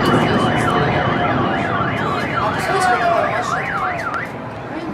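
Car alarm wailing rapidly up and down, about three sweeps a second, stopping about four seconds in. Other alarm tones waver underneath, with scattered crackles of fireworks.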